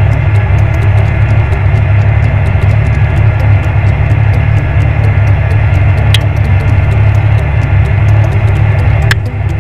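Valtra 8350 tractor's six-cylinder diesel engine running steadily with a deep drone, pulling a plough. A couple of sharp clicks come through, about six and nine seconds in.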